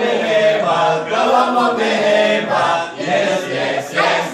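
A group of voices chanting a team cheer (yel-yel) together in unison, half sung.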